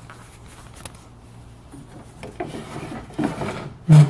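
Soft rubbing and scraping, with a dull knock near the end: handling noise as the camera is moved about beneath the table saw.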